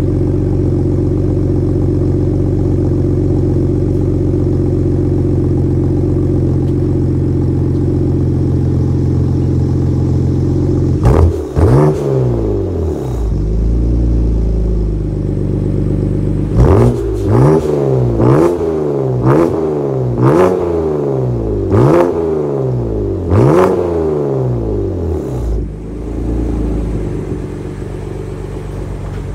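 BMW M4's S55 twin-turbo inline-six idling through VRSF catless downpipes and an RPI GT resonated catback exhaust. About eleven seconds in it is revved once, then given about seven quick throttle blips in a row, each snapping up and falling back toward idle. It then settles back to a slightly quieter idle.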